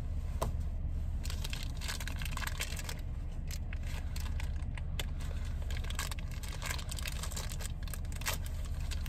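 Blind-box toy packaging being opened and handled by hand: a run of crinkles, small rips and plastic clicks from cardboard and a plastic dome case, over a steady low hum.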